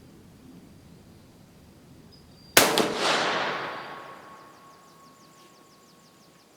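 A single rifle shot from a Dutch Beaumont 11 mm black-powder-era rifle, about two and a half seconds in. The sharp report echoes and dies away over about two seconds.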